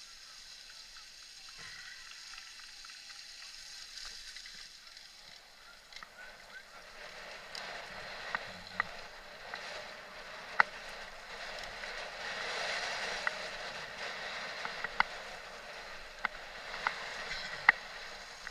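Mountain-bike tyres rolling over a dirt and muddy track, heard from a camera on the moving bike, with sharp clicks and rattles from the bike, more of them in the second half.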